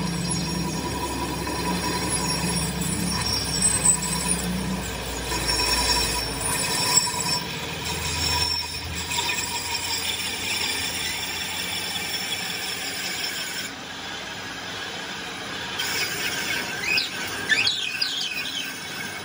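Metal lathe running with a welded truck drive shaft spinning in its chuck, giving off high-pitched squealing tones. A low hum drops away about six and a half seconds in, and wavering squeals come near the end.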